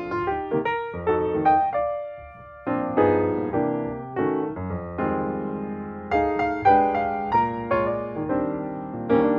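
Background piano music: chords and a melody of struck notes that ring and fade.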